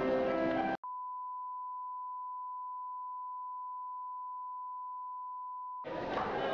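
A steady, pure test-tone beep of the kind that goes with television colour bars, holding one pitch for about five seconds. It cuts in abruptly about a second in, after a moment of music and voices, and cuts off just as chatter returns near the end.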